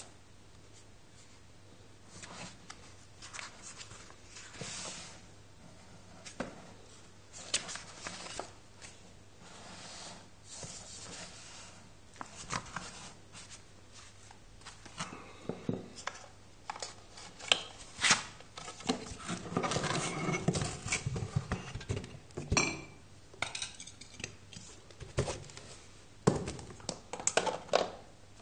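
Unboxing handling noise: cardboard flaps and packaging rustling and scraping, with scattered sharp knocks and clatter as a small electric pump is taken out of its box and handled, busiest in the second half.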